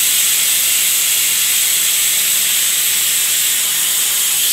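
Stovetop pressure cooker whistling: the weighted valve on the lid lifts and vents steam in a loud, steady high hiss. It is one of the whistles that show the cooker is at full pressure and the millet and toor dal inside are cooking.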